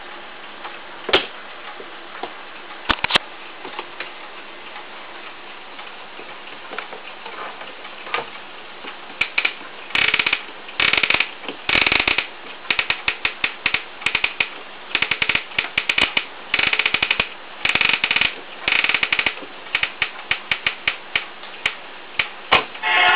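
Radio alarm clock clicking and ticking mechanically over a steady hiss: a few isolated clicks at first, then a dense, irregular run of rapid clicks from about nine seconds in.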